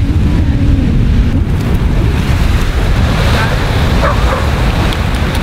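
Wind buffeting the camera microphone in a steady low rumble, over the wash of breaking surf, with faint voices in the background.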